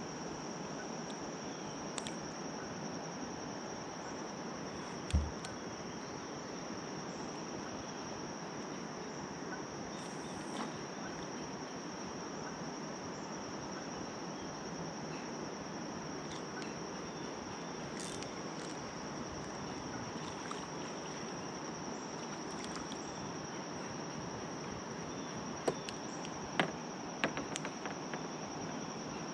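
Steady high, even insect drone over a constant outdoor hiss. A single low thump comes about five seconds in, and a few sharp clicks near the end.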